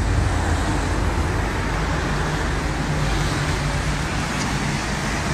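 Road traffic on a rain-wet city street: a steady rush of passing vehicles, with a low engine hum joining about two seconds in.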